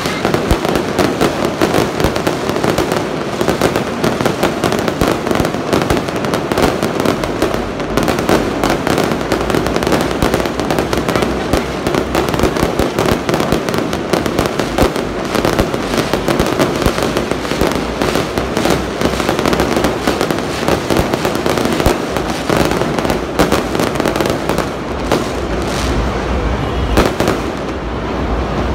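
Fireworks display at full tilt: a dense, continuous barrage of rapid bangs and crackling from aerial shells bursting overhead, with no pause.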